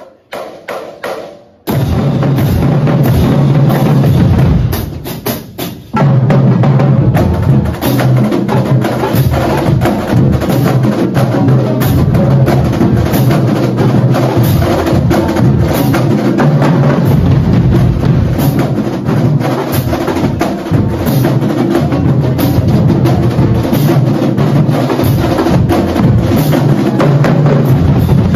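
Marching drumline playing together: snare drums, tenor drums, marching bass drums and crash cymbals. It starts with a few light strokes, comes in loud under two seconds in, thins to a few ringing hits around five seconds, and comes back in full about six seconds in.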